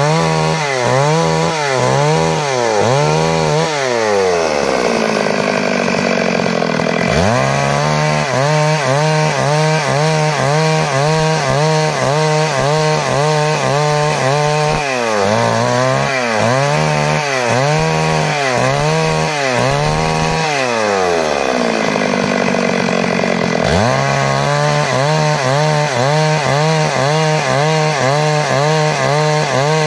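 Stihl MS 382 two-stroke chainsaw ripping lengthwise through a timber beam, its engine pitch rising and falling about once or twice a second as the saw is worked through the cut. Twice, about four seconds in and again about twenty seconds in, the engine slows and its pitch sinks for a few seconds before it revs back up.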